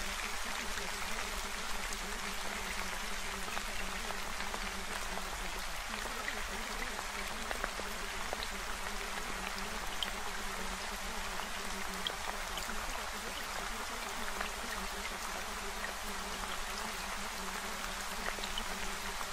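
Steady rain: an even hiss of falling rain with scattered ticks of single drops.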